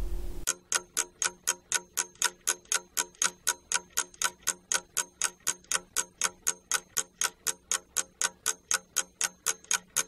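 Clock-ticking sound effect, a steady even tick about four times a second, marking time for a classroom exercise.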